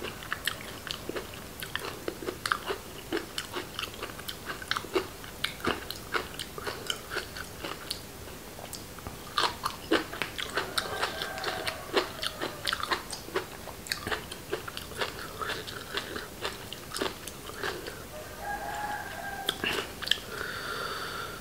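A person chewing and biting food close to the microphone, with frequent irregular wet smacks and small crunches.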